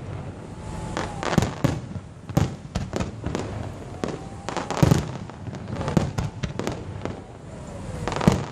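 Aerial fireworks bursting one after another in sharp bangs and crackles, with a thin whistle gliding in pitch just before the big bursts about five seconds in and near the end.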